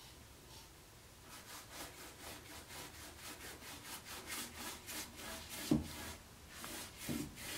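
Faint, quick, rhythmic scrubbing and dabbing of a stiff chip brush working chalk-style paint into a raised-stencilled wooden drawer front, a few strokes a second. There is one louder knock a little before six seconds in.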